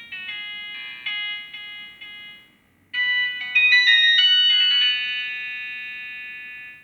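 Samsung GT-E1200i mobile phone playing ringtone melodies of short electronic notes: one phrase stops about two and a half seconds in, and after a brief pause a louder melody starts, its last note fading out near the end.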